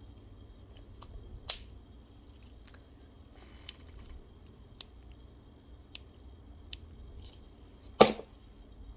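Sharp plastic clicks from handling a dog collar and its buckle: one loud click about one and a half seconds in, a few lighter clicks spaced about a second apart in the middle, and a louder knock near the end.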